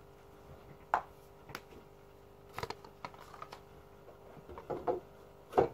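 Fish-food containers being put back and handled, giving a series of irregular sharp knocks and clicks, the loudest near the end. A faint steady hum runs underneath.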